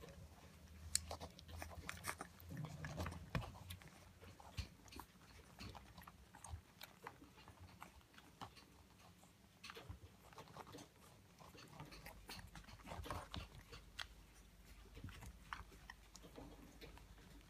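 Faint wet smacking and clicking of Bedlington terrier puppies suckling at their mother's teats.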